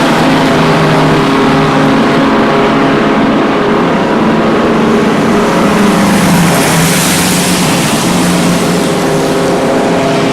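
Vintage Indy race car engine running hard at high revs, loud and steady, its pitch shifting as it works. The sound grows brighter and hissier about six seconds in.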